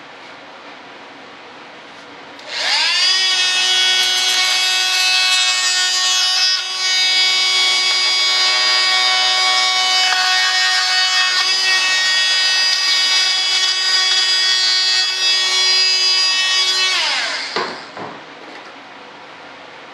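Electric drill spinning up about two and a half seconds in, running at a steady high-pitched whine for about fourteen seconds with a brief dip, then winding down.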